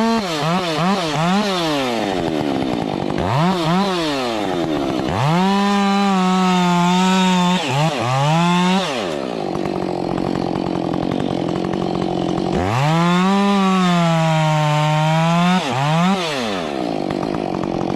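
Chainsaw engine being throttled: a string of quick revs at first, then held at high revs twice for a few seconds each, the pitch sagging slightly while held. It drops back to idle in between and at the end.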